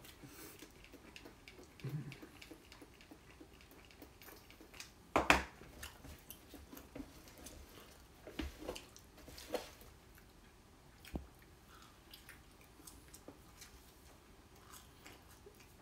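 A man chewing and biting into a soft, syrupy slice of French toast dessert pizza, with faint mouth sounds. A few sharp clicks sound over it, the loudest about five seconds in.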